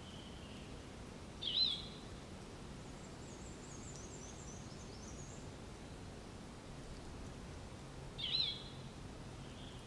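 Faint natural outdoor ambience with two short whistled animal calls about seven seconds apart, each a quick hooked note that levels off, and a faint run of high chirps in between.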